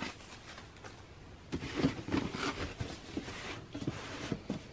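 Cardboard shoe box being handled and turned over by hand: a run of light scrapes, rubs and taps starting about a second and a half in.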